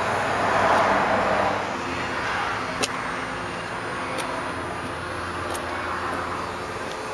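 Road traffic passing by, with one vehicle swelling past about a second in and fading away, over a faint steady low hum. A single sharp click comes near three seconds in.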